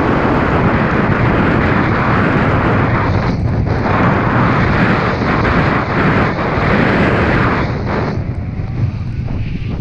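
Loud, steady rush of wind over the microphone of a camera worn by a snowboarder riding fast downhill, mixed with the hiss of the board sliding over snow. It dips briefly about three and a half seconds in and again near the end.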